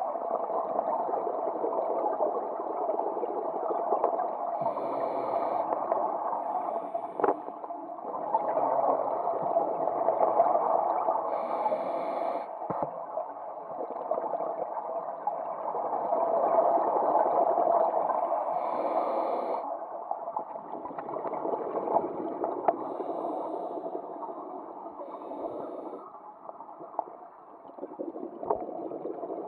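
Scuba divers breathing through their regulators underwater, with exhaled bubbles gurgling and rushing, heard muffled through a camera housing. The rushing swells and fades every several seconds with the breaths, with a short hiss now and then.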